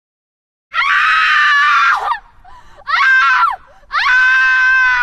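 A woman screaming three times, high-pitched: a long scream starting under a second in, a shorter one, then another long one, each dropping in pitch as it breaks off.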